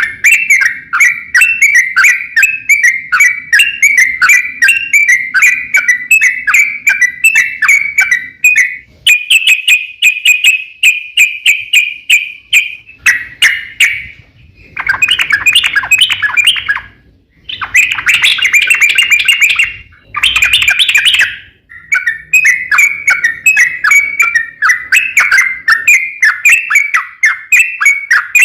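Yellow-vented bulbul (trucukan) singing in long, loud runs of rapid chattering notes, broken by a few short pauses partway through.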